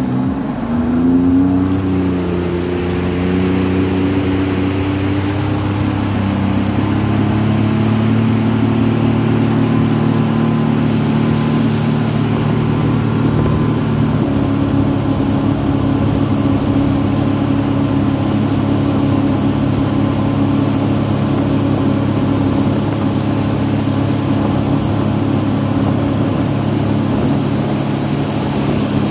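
Sea-Doo personal watercraft engine opening up about a second in, its pitch climbing, then running at a steady cruising pitch with a small step up around halfway.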